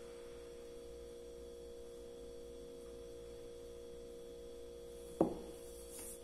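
A steady electrical hum of a few close, even tones, with one short knock about five seconds in as a porcelain cup is set down on the table.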